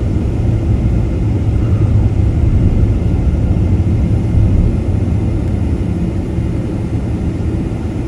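Steady low rumble of a vehicle driving along the highway: engine and road noise with no change in pace.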